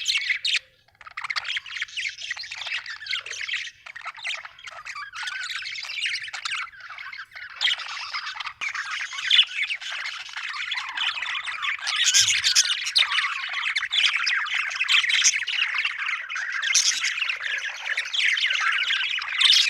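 Budgerigar chirping and chattering almost without a break, a rapid jumble of short chirps and squawks, with a brief pause about a second in.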